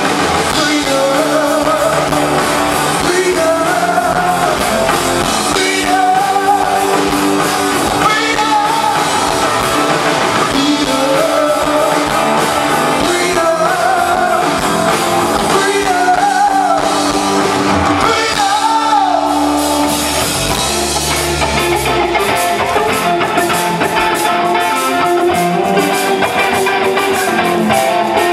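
Live rock band on stage, a singer over electric guitar and drums, the song running on without a break.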